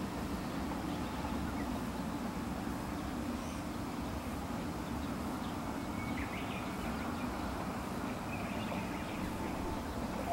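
Steady low outdoor background rumble with a few faint bird chirps past the middle and near the end.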